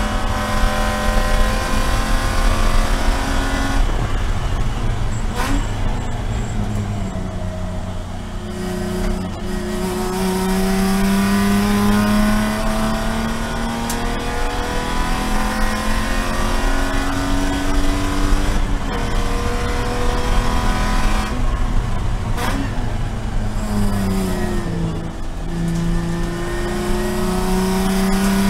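A Spec E46 BMW's inline-six race engine, heard from inside the cockpit, pulling hard at high revs. Its note drops as the driver lifts and brakes for corners, then climbs again under full throttle, several times over. A few sharp clicks come through the cabin along the way.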